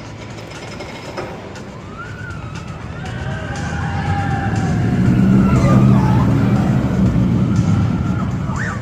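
An amusement ride running with a low rumble that builds to its loudest about five to six seconds in, then eases off, with riders' voices calling out over it.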